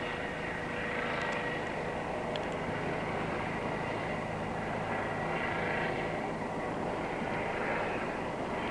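Helicopter hovering overhead, a steady, even drone of its rotor and engine.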